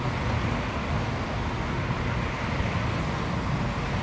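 Road traffic: cars driving through an intersection, a steady rumble of engines and tyres.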